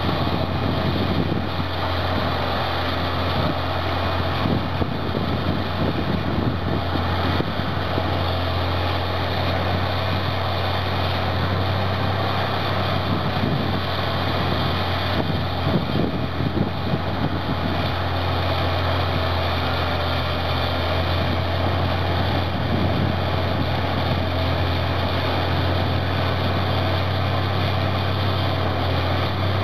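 Caterpillar D11N bulldozer's C27 ACERT V12 diesel engine running steadily under load as the dozer pushes a big pile of dirt, a loud constant low drone.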